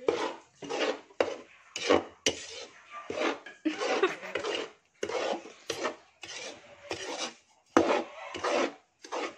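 Long metal spoon scraping and stirring flour in a wide metal pan, in short strokes about twice a second: flour being dry-toasted for polvoron and kept moving so it does not burn.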